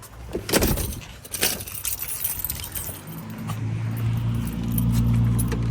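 A set of car keys jangling and clicking as they are handled at the trunk lock. About three seconds in, a steady low hum starts and grows louder.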